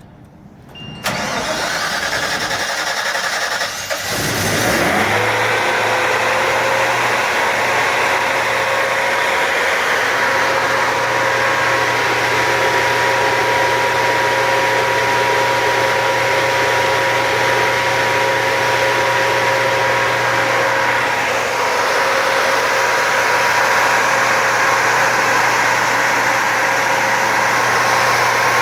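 Detroit Diesel MTU 130 kW natural gas generator engine cranking on its starter about a second in, catching at about four seconds, then running steadily at its set speed with an even hum and whine.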